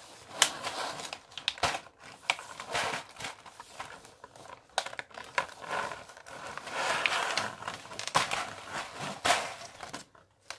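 A clear plastic bead storage box being handled and moved about: irregular plastic clicks and knocks with stretches of rustling.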